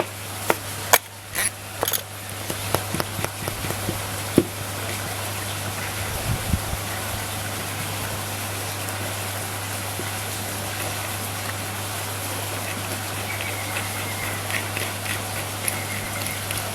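Parts of a BMX hub being handled during disassembly: a few sharp clicks and knocks of metal pieces in the first few seconds, then a steady hiss with a low hum and occasional faint clicks.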